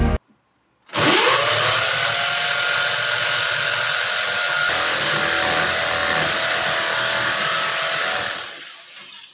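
Corded electric drill starting up about a second in with a rising whine, then running steadily as the bit bores into an old cement wall, and winding down near the end.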